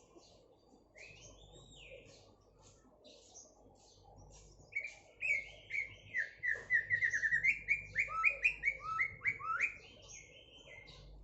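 White-rumped shama (murai batu) singing. Faint chirps come first, then about five seconds in a loud, fast run of whistled notes lasting about five seconds, some stepping down in pitch: the shama's imitation of an orange-headed thrush (anis merah) song.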